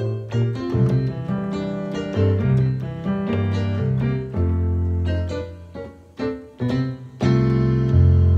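Electronic keyboard played with a piano sound: a melody over deep bass notes and chords, ending on a loud, long-held low chord near the end.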